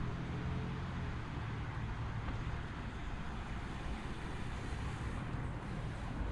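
Steady low rumble of road traffic with an even hiss above it; no single vehicle stands out.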